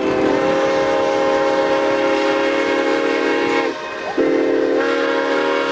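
Steam locomotive whistle sounding a chord of several pitches in two long blasts: the first cuts off with a slight drop in pitch about four seconds in, and the second starts half a second later and runs on.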